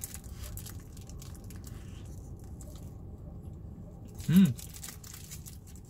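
A person chewing a mouthful of hot rice, with faint wet mouth clicks over a steady low background hum, and one short hummed "mm" about four seconds in.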